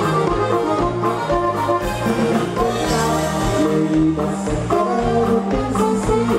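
Live Mexican regional band music: a saxophone-led group playing over bass and drums with a steady beat, the singer's voice at the microphone.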